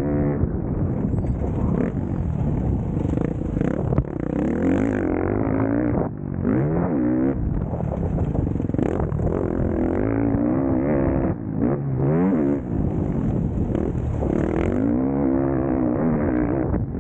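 Motocross bike engines running hard, the pitch rising and falling over and over as the riders open and close the throttle through the gears, with the throttle briefly shut a couple of times.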